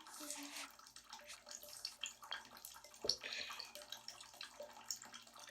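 Soft sloshing and small splashes of water in a filled bathtub as someone moves in it, with drips; a sharper splash comes about three seconds in.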